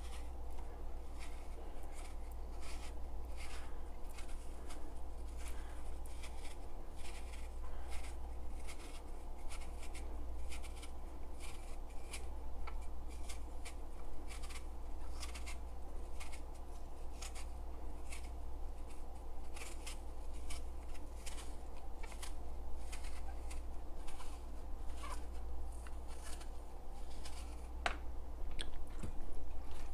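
Kitchen knife peeling an apple by hand: repeated short, irregular scraping strokes as the blade cuts the skin away, over a steady low hum.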